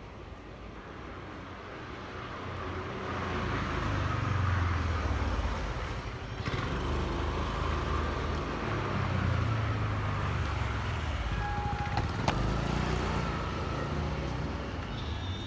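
Low, steady vehicle noise that grows louder over the first few seconds, with a sharp click about twelve seconds in.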